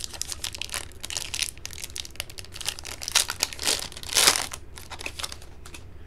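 Foil trading-card pack wrapper crinkling and tearing as it is opened by hand, with a louder crinkle about four seconds in.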